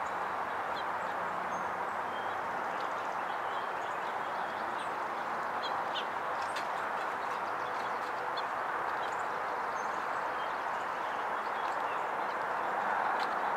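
A steady rushing background noise with many brief, faint high chirps from small songbirds scattered through it.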